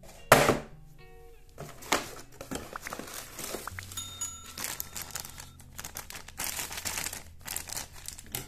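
Thin plastic toy bag crinkling as it is handled, over light background music. A short bell chime comes about four seconds in, and there is a loud thump just after the start.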